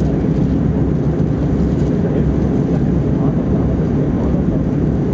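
Steady roar inside the cabin of an Airbus A321-231 in flight after take-off: the IAE V2500 engines and the rush of air, an even low rumble with no change in level.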